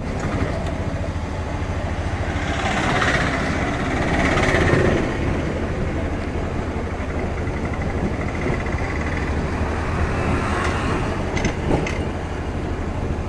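A vehicle's engine running with a steady low rumble, a hiss swelling over it about three to five seconds in, and a couple of sharp clicks near the end.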